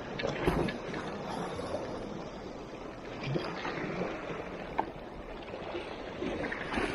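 Small sea waves sloshing and washing against a rocky shoreline, swelling a few times, with one sharp click about five seconds in.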